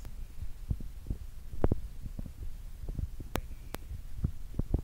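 Footsteps of a hiker walking on a gravel trail, heard as irregular dull thumps about two a second, with a few sharp clicks from the handheld phone jostling.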